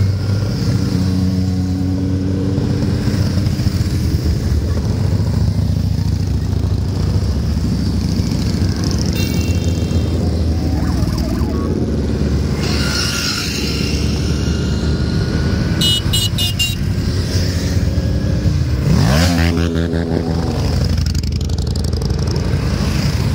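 A column of motorcycles and scooters riding past in a continuous stream, their engines running together in a steady drone. About nineteen seconds in, one bike passes close and stands out, its pitch sweeping as it goes by.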